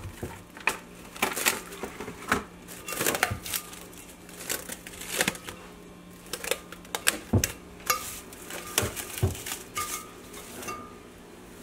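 Plastic cling wrap being pulled, crinkled and stretched over a glass mixing bowl: a long run of irregular sharp crackles and rustles, with a few soft knocks of the bowl being handled.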